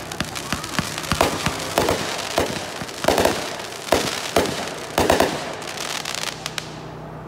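Aerial fireworks going off in quick succession, a string of sharp bangs as shells launch and burst, dying away near the end.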